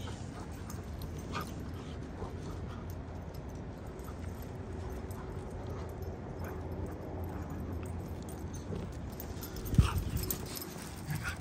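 A dog whimpering and giving short yips, faint against steady low background noise, with one sharp thump near the end.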